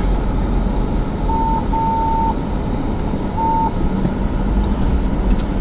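Bulldozer diesel engines running with a steady low rumble, while a reversing alarm beeps three times in the middle.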